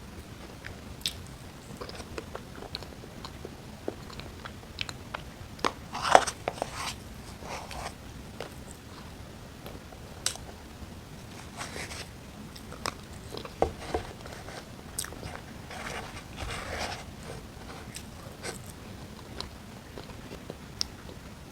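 A person biting and chewing food, with scattered sharp mouth clicks and short bursts of chewing noise; the loudest bite is about six seconds in.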